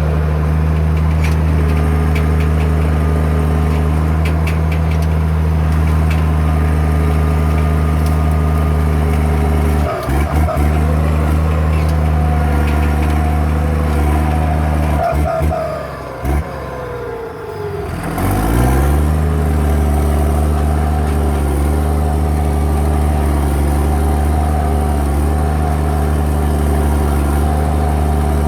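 Fiat-Allis FD9 crawler tractor's diesel engine running steadily. Its speed dips briefly about ten seconds in, then sags for a few seconds past the middle before climbing back up to speed.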